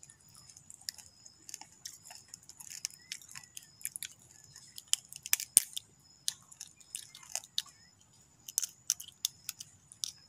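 A raw crab's shell being cracked and its top shell pried off by hand: a run of small, irregular cracks and clicks, the sharpest about halfway through.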